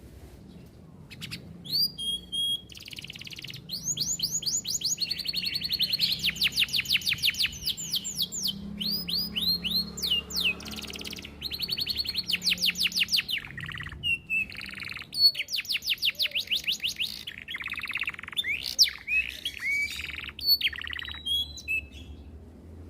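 Domestic canary singing a long, varied song of rapid trills and rolls: fast runs of repeated downward-sweeping notes, broken by short pauses.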